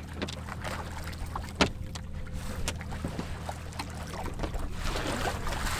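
A boat's engine idling with a steady low hum, with water splashing as a hooked mahi-mahi thrashes at the surface beside the hull. There is one sharp knock about a second and a half in.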